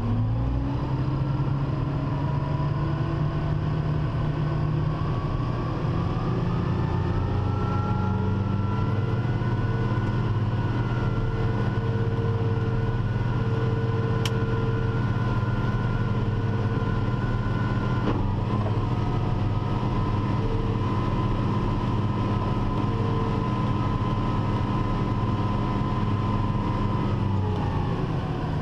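Tractor engine running steadily under load while pulling a ripper through harvested ground. Its pitch rises in the first couple of seconds and drops near the end.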